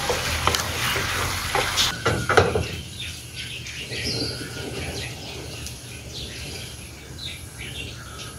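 Chicken and basil sizzling in a frying pan while a wooden spatula stirs it, with a few sharp knocks of the spatula on the pan, for about two seconds. Then the sizzle drops away and birds chirp here and there.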